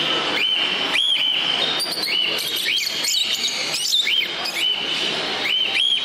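Small caged parrots calling: short, high whistled chirps repeating about twice a second, over a steady din of other birds.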